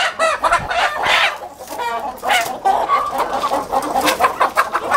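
Many caged country chickens clucking and squawking over one another, with short bursts of wing flapping.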